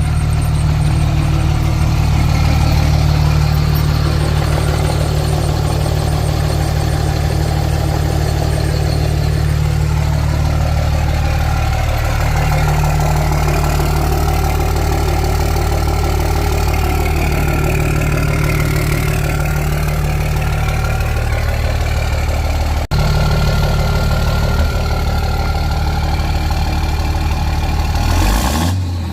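5.9-litre Cummins turbo-diesel straight-six idling steadily through a 5-inch stainless steel exhaust, with a deep, even hum and a brief dropout about two-thirds of the way through.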